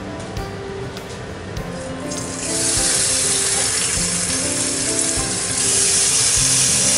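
Raw pork belly slices hitting a hot frying pan with sesame oil and sizzling, starting about two seconds in and getting louder again a few seconds later as more slices go in.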